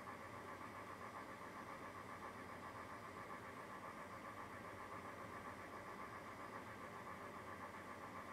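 A steady, even machine-like hum with no distinct splashes or knocks.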